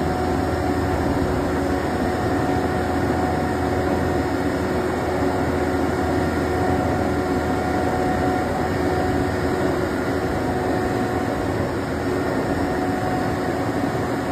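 Self-loading concrete mixer truck running steadily, its engine drone carrying a constant whine.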